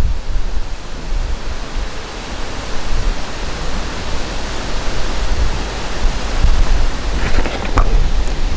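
Wind buffeting the microphone outdoors: a steady rushing noise with a heavy low rumble that swells and drops in gusts.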